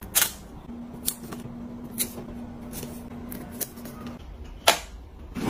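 Light sharp clicks and taps, about one a second, as printed labels are peeled off and pressed onto plastic storage-container lids, over a faint steady hum.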